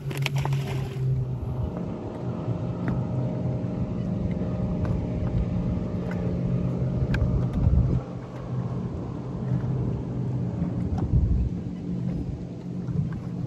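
A boat motor running steadily with a low hum, and a couple of louder low rumbles in the second half.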